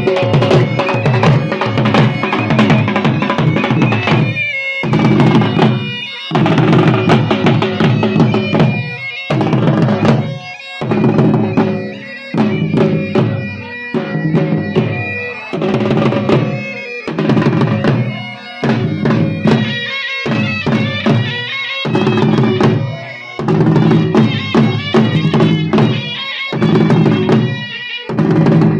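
Jhumar folk music: a dhol drum beating under a loud reed pipe playing a melody over a steady drone. The music dips briefly every second or two in a repeating rhythm.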